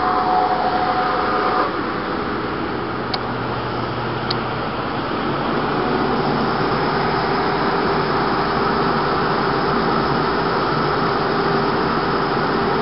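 SCM Sandya 20 double-head wide belt sander running with a steady mechanical noise as a wooden strip feeds through on its conveyor. It is a little louder with a higher tone for the first couple of seconds, there are two faint ticks a few seconds in, and a steady hum settles in from about halfway.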